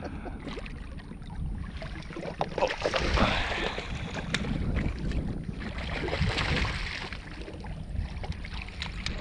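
Wind buffeting the microphone over water lapping and splashing against a small fishing boat, with a few faint knocks.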